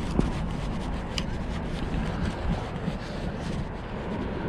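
Wind buffeting an action-camera microphone over a steady low outdoor rumble, with a faint click about a second in.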